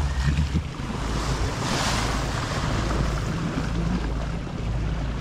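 Water rushing along a motor-sailing sailboat's bow, with wind buffeting the microphone, over the low steady drone of the boat's engine. A brief louder hiss comes about two seconds in.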